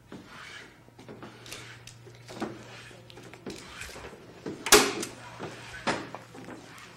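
Sharp knocks and clacks of cedar strips being pressed together and stapled onto the kayak forms, with the loudest snap, like a staple gun firing, a little under five seconds in and another about a second later.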